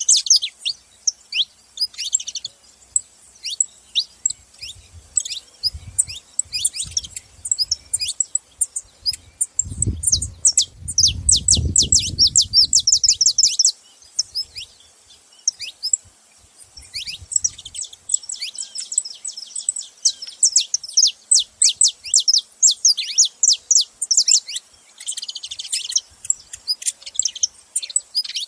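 Saffron finches chirping: dense runs of short, quick downward-slurred notes, several birds at once, in bursts with brief gaps. A low rumble sounds underneath for a few seconds near the middle.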